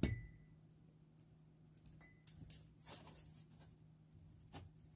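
Faint scattered clicks and taps of hands handling a small ceramic teacup and its ribbon tie, with a pair of scissors brought in to cut the ribbon; most of the taps come from about two seconds in.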